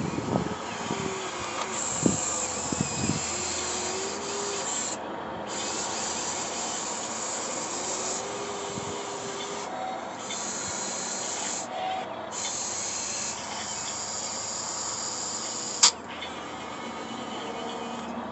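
Radio-controlled excavator working in dirt: a hissing whir that starts and stops abruptly several times, with scraping and a few knocks in the first seconds and one sharp click near the end.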